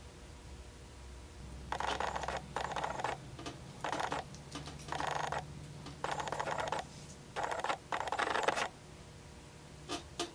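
Repeated bursts of rustling, crinkling handling noise, each about half a second to a second long, starting about two seconds in and stopping near nine seconds. A few short clicks come near the end, over a faint low hum.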